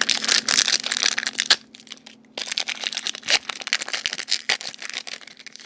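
Foil Pokémon booster pack wrapper crinkling and crackling in the hands as it is opened, with a short pause about a second and a half in.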